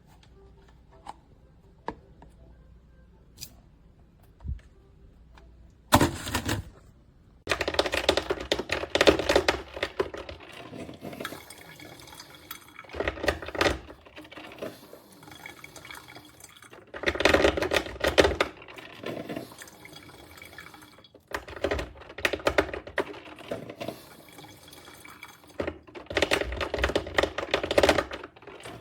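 KRUPS Simply Brew 10-cup drip coffee maker brewing: hot water gurgling and spurting through in irregular bursts every few seconds, starting about six seconds in.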